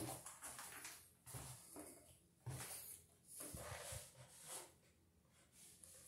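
Faint footsteps and shuffling: a few soft thumps roughly a second apart, over near silence.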